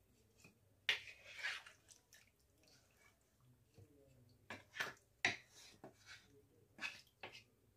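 A wooden spoon stirring raw chicken pieces in a thin vinegar-and-soy marinade in a nonstick kadai: scattered wet squelches and sloshes, with sharper clicks about a second in and several more in the second half.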